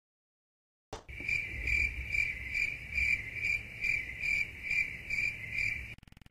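Cricket chirping: a regular run of chirps, about two and a half a second, starting after a second of silence and stopping shortly before the end.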